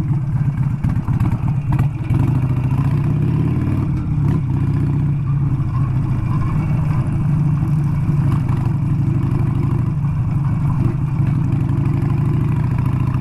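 Harley-Davidson motorcycle's V-twin engine running steadily as it rides along a dirt road.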